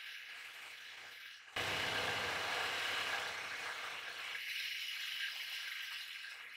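Knife blade being polished against a spinning buffing wheel on a shaft running in pillow-block bearings: a steady mechanical whir and rubbing hiss. It gets suddenly louder about a second and a half in.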